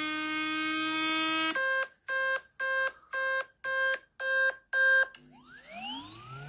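An iPhone's loudspeaker playing a speaker-cleaning app's test tones: a steady buzzing tone, then about seven short beeps, roughly two a second, then a tone rising steadily in pitch near the end. The tones are played to shake dust out of the speaker and microphone openings.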